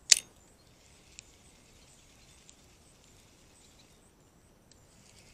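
One sharp click from a spinning reel just after a cast, near the start, followed by a few faint ticks at irregular intervals.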